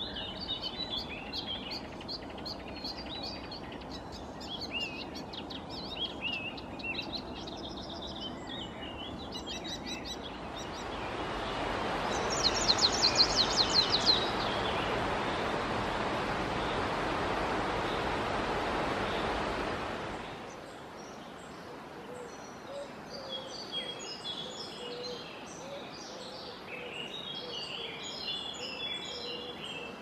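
Small songbirds calling and singing: high chirping calls at first, then, over a steady loud rushing noise, a greenish warbler gives one fast, high trill lasting about a second and a half; near the end, more high song phrases.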